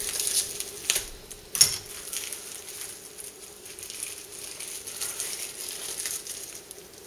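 Plastic wrapping crinkling and rustling as it is pulled off two small knives, with a brief sharp crackle about one and a half seconds in, then softer rustling.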